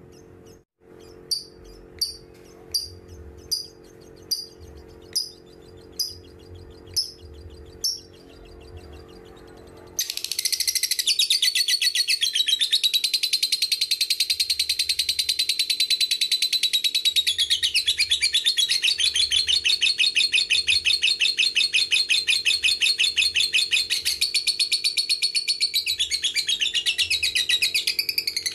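Lovebird calling: about nine sharp single chirps, a little under a second apart, then about ten seconds in it breaks suddenly into ngekek, a long unbroken rapid chattering trill.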